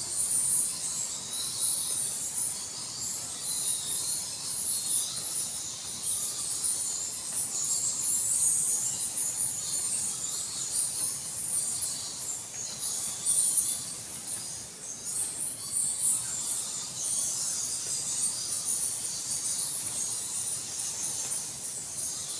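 A colony of cave bats chittering: a dense, continuous high-pitched twittering of many overlapping calls.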